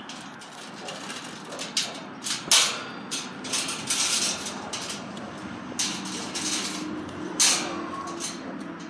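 Galvanized metal farm gate being unlatched and swung open: a string of clanks and rattles of the latch against the tube frame, loudest about two and a half seconds in and again about seven and a half seconds in.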